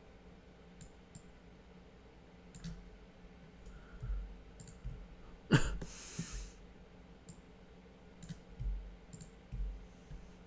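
Scattered computer mouse clicks at a desk, with a few soft low thumps and one louder sharp click about halfway, followed by a short hiss.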